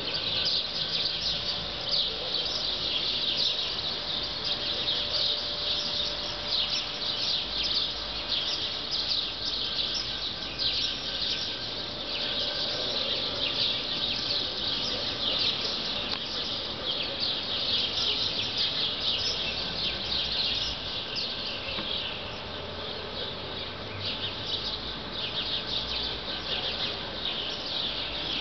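Dense, steady chorus of high-pitched chirping from many small animals, with a faint low rumble beneath.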